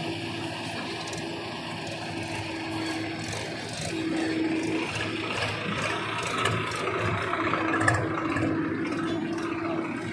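Diesel engines of a JCB 3DX backhoe loader and a Mahindra tractor running with a steady hum, while the backhoe loads soil into the tractor's trailer, with scattered light rattles and clicks.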